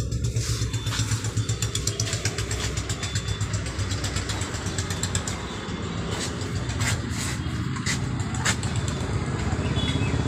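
A small engine running steadily with a fast low throb, with a few sharp clicks over it.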